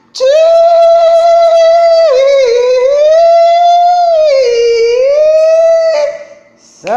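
A woman's voice singing one long wordless high note for about six seconds, sliding down and back up twice before it stops; a new sung phrase begins right at the end.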